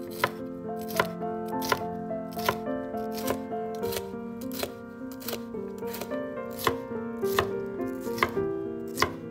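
Chef's knife chopping red bell pepper on a wooden cutting board: a sharp knock of the blade on the board roughly every three-quarters of a second, with softer cuts in between. Background music plays underneath.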